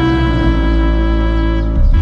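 Soundtrack music: sustained chords held over a deep bass note, with a brief sweeping change near the end.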